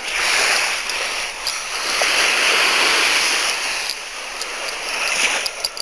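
Small waves washing up on the beach: a hissing wash that swells for about three seconds, eases, and then builds again near the end.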